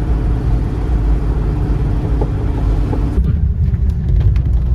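BMW E30 325i's 2.5-litre straight-six running steadily while driving at low speed, heard inside the cabin along with road and drivetrain noise. The higher part of the noise drops away abruptly about three seconds in.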